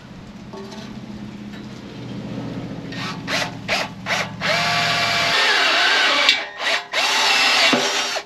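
Power drill boring mounting holes through steel bumper plate: a few short bursts on the trigger, then sustained drilling with a wavering whine as the bit cuts, a brief pause, and a stop just before the end.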